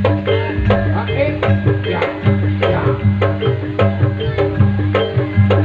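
Javanese gamelan music accompanying a jaranan horse dance: tuned gong-chimes and metallophones strike a fast, repeating pattern on an even beat, over drum strokes and low sustained tones.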